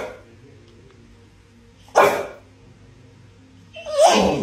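A pit bull-type dog barking: single loud barks about two seconds apart, one at the start, one about two seconds in and one near the end, the last with a short rising whine just before it.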